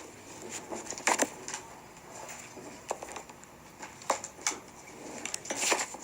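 Scattered sharp clicks and light taps, about half a dozen, over low steady room noise.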